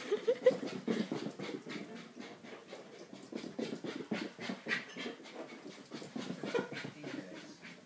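A dog panting quickly and steadily, in short even breaths.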